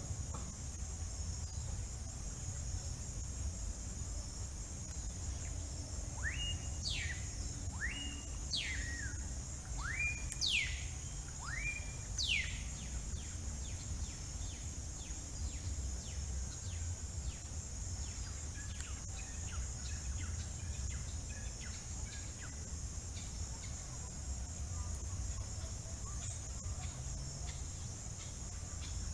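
A steady high-pitched insect chorus of crickets or cicadas runs throughout. About six seconds in a bird calls a run of five sweeping notes over some six seconds, each a quick rising note that holds briefly and drops. Fainter repeated short calls follow until near the end.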